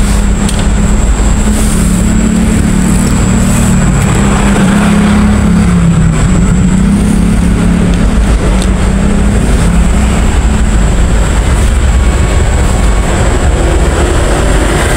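A motor engine running steadily, a low rumble whose pitch wavers and dips a little around the middle, with a thin high whine over it.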